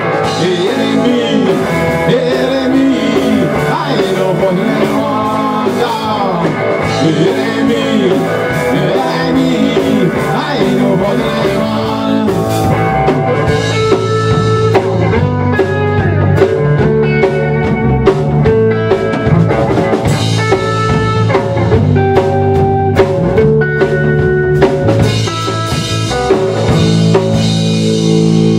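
A live rock band playing an instrumental passage: electric guitars over a drum kit, with a lead line of bent, sliding notes in the first half that settles into steadier held notes.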